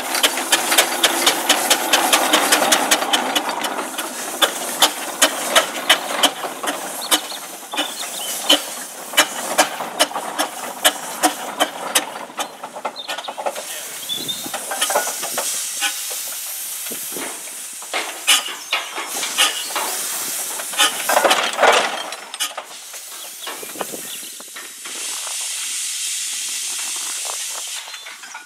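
Ruston Proctor steam traction engine under way: a run of sharp exhaust chuffs, about two a second through the middle, over steam hissing. Near the end the chuffs give way to a steady hiss of steam venting low at the front of the engine.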